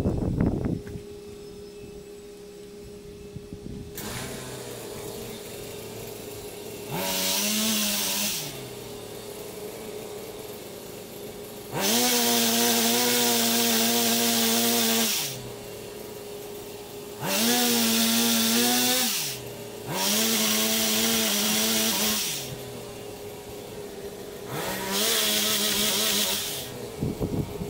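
High-reach pole chainsaw run in five bursts while cutting tree branches. Each burst rises in pitch as the saw spins up, holds steady, and falls off as it stops. The longest burst lasts about three seconds.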